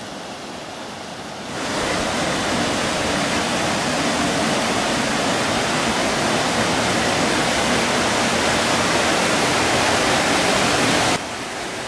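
Water spilling over and through canal lock gates and falling into a rock-cut lock chamber: a steady rush. It gets clearly louder about one and a half seconds in and drops back down near the end.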